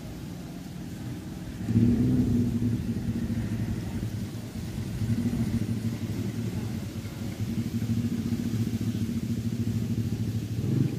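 An engine running, coming in about two seconds in as a steady low drone with a slight waver.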